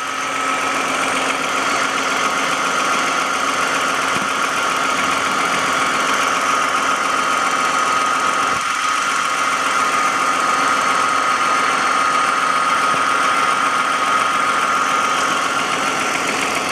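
2007 Toyota Avalon's 3.5-litre V6 running, heard up close at one side of the engine: a steady swooshing with a slight ticking and a steady high whine through it, one of three distinct noises from an engine loud enough to be heard 100 feet away.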